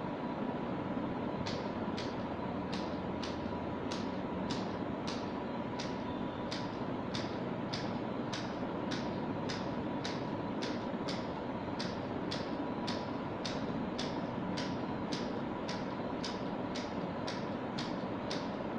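Evenly spaced clicking, a little over two clicks a second, starting about a second and a half in and stopping shortly before the end, over a steady hum with a faint high tone.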